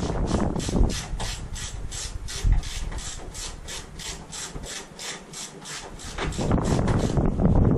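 Ratchet spanner worked in quick, even strokes, about three or four rasping clicks a second, as a bolt is run in on the Mini's rear subframe. A louder rushing noise sits under it in the first second and again near the end.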